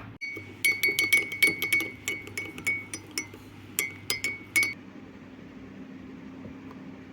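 A metal spoon clinking rapidly against a ringing cup, as in stirring, about five strikes a second. It stops abruptly after about four seconds.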